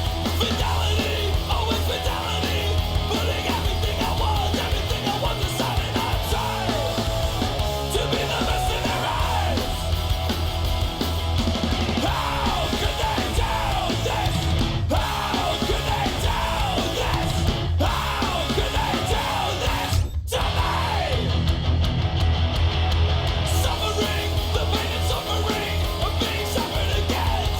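Loud heavy rock music with shouted vocals, cutting out for an instant a few times midway.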